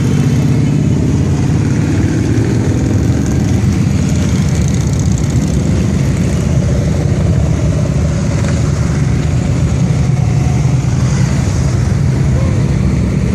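A procession of touring motorcycles riding past at low speed, their engines running in a steady, loud low drone, one bike after another.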